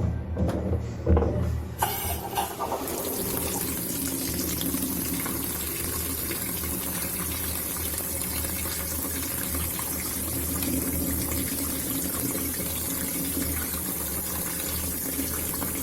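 Panasonic NA-F70B2 washing machine switched on: a few knocks and clicks, then from about two seconds in a steady rush of running water with a low hum as the machine takes in water.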